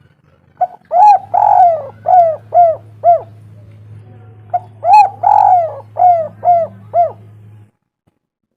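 Spotted dove cooing: two phrases of about six coos each, the second starting about halfway in, each with one longer drawn-out coo near its start followed by shorter, evenly spaced ones. A low steady hum runs under the calls and cuts off near the end.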